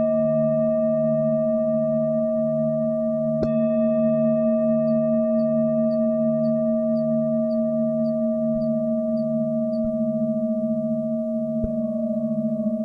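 Tibetan singing bowls ringing in long sustained tones, the lowest with a slow wobbling beat. A bowl is struck about three and a half seconds in, renewing the ring, and a lighter strike comes near the end, with a row of about ten faint high pips in the middle.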